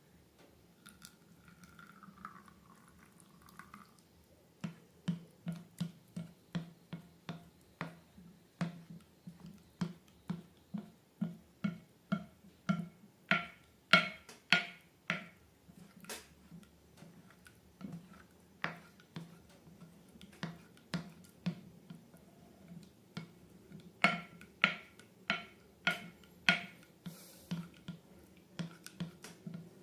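Slime being squeezed and worked by hand, making a steady run of wet clicks and pops at about two a second, louder around the middle and again near the end.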